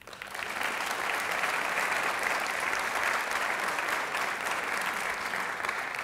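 Audience applauding, building quickly at the start and fading away near the end.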